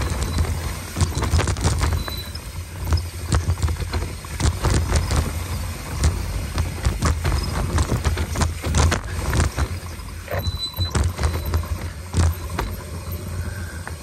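Mountain bike ridden fast down a dirt singletrack: tyres rumbling over dirt and roots, with a constant patter of rattles and sharp clicks from the bike jolting, over steady wind buffeting on the handlebar-mounted camera.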